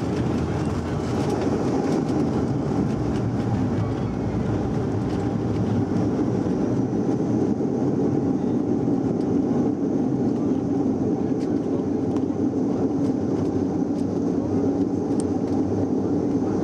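Bombardier Q400 turboprop airliner rolling out on the runway after touchdown, heard inside the cabin: a steady, loud rumble of its Pratt & Whitney PW150A turboprop engines and the wheels on the runway.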